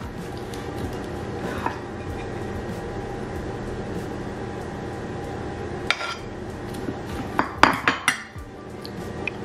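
Metal fork stirring and tossing salad in a ceramic bowl, with scattered clinks of metal on ceramic, the loudest as a quick cluster near the end.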